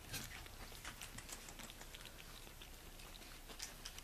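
Faint scattered soft ticks and rustles of chihuahua puppies moving about on a bedsheet.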